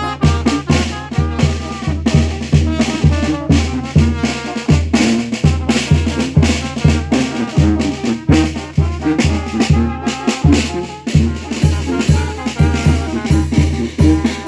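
Brass band (banda) music: a bouncing bass line of short notes, about three a second, with bass drum and snare on a steady beat and held brass notes above.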